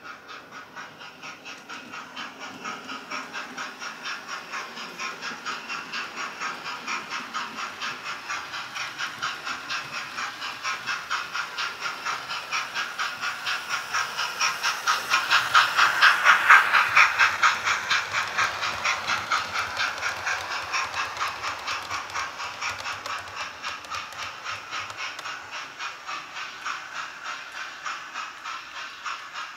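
Hornby TTS sound decoder in an OO gauge LMS Black 5 model steam locomotive, playing recorded steam-engine chuffs through the model's small speaker as it runs, in a steady even rhythm. It grows louder as the model passes close by about halfway through, then fades as it runs away.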